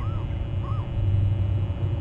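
Steady low rumble of wind on the microphone, with two short distant bird calls, one at the start and one a little under a second in.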